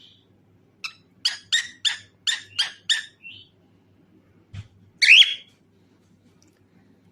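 Cockatiel calling: a fast run of six short chirps, then about two seconds later one louder call that sweeps up in pitch.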